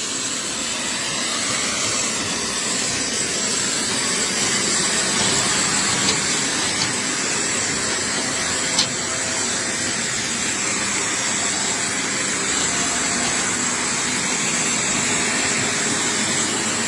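Jet aircraft engines running: a steady rushing noise with a high, thin whine over it, and a couple of faint clicks.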